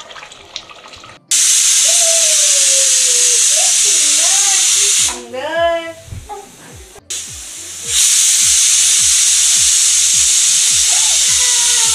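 Aluminium pressure cooker whistling: steam blowing out loudly under the weight in two long hisses of about four seconds each, the first starting about a second in and the second about eight seconds in. The whistles mark that full pressure has been reached in the cooker.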